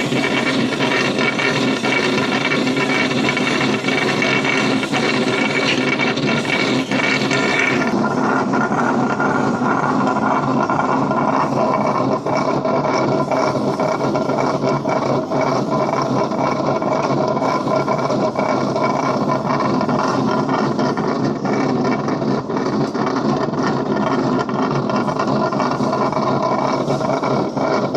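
Box-pasting machine running, its steel rollers turning with a loud, steady mechanical drone. About eight seconds in, a higher hiss drops away and the lower drone carries on.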